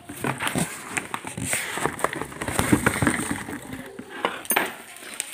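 Plastic wrapping and cardboard rustling and crinkling, with irregular scrapes and knocks, as a portable sauna steam generator is pulled out of its packing box.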